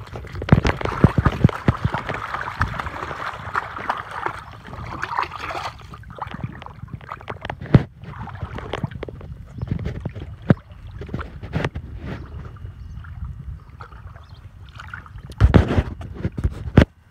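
Splashing in shallow water, with many sharp little clicks and knocks, busiest over the first six seconds. Near the end there are several loud knocks from a finger handling the phone over the microphone.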